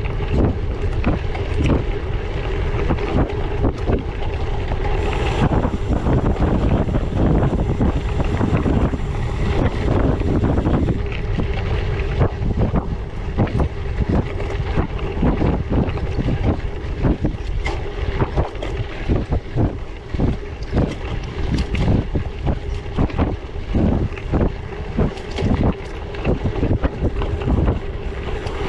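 Wind buffeting the microphone of a camera on a gravel bike riding off-road on 700x38c tyres, with constant rattling and knocking as the bike jolts over rough ground.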